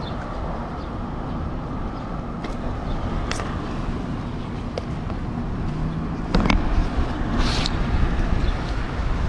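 Steady low outdoor rumble, with a few short sharp clicks and a brief rustling scrape about three-quarters of the way through.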